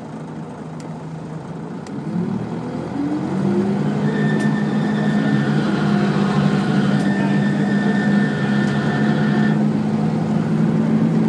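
Volvo B10BLE bus engine, heard from inside the saloon, building up revs as the bus pulls away, rising in pitch and loudness about two seconds in and then settling into a steady drone. A high, steady whine runs over it for several seconds in the middle.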